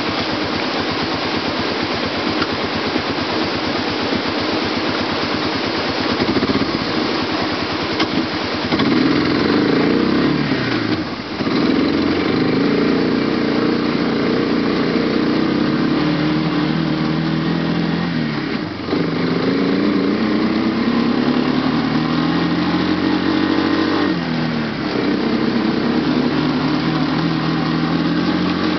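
ATV (quad) engine pulling up a rough rocky trail, its pitch rising and falling as the throttle opens and eases. It runs steadier for the first several seconds, then louder, with a few brief dips where the engine note drops and climbs again.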